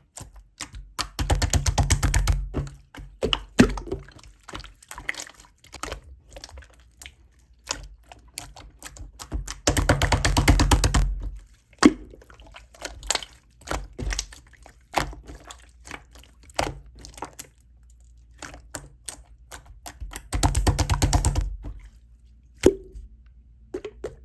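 A green tea latte being mixed: three bursts of rapid stirring, each about two seconds long, a couple of seconds in, around the middle and near the end, with scattered clicks and knocks of the utensil and cup in between.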